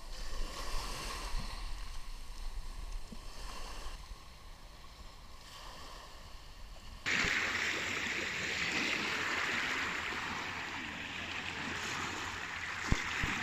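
Small waves washing on a sandy shore, with low wind noise on the microphone. About seven seconds in, the sound cuts to a louder, steady wash of surf, and a couple of brief knocks come near the end.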